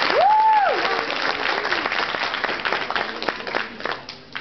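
Audience applauding, with a single whoop that rises and falls near the start; the clapping thins out and fades near the end.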